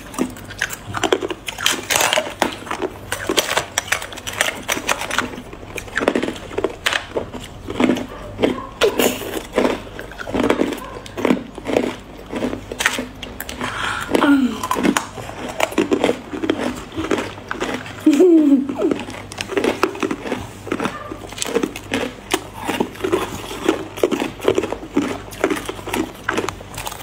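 Hard ice being bitten and chewed: a dense, irregular run of sharp crunches and cracks, with a few brief hums of the voice.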